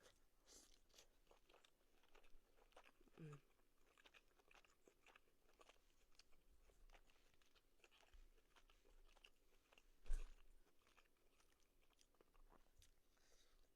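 Faint close-up chewing of a bite of ribeye steak: soft wet mouth clicks and smacks, with a brief falling hum about three seconds in. A single thump about ten seconds in is the loudest sound.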